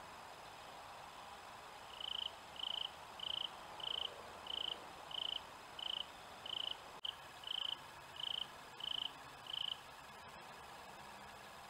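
A cricket chirping at a steady pace: about a dozen short, high chirps a little over half a second apart, starting about two seconds in and stopping near the end, over a faint steady hiss.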